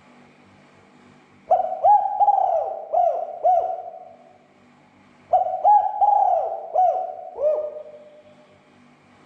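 Spotted dove (tekukur) cooing: two calls about four seconds apart, each a quick run of hooting coos that trails off. A faint steady hum sits underneath.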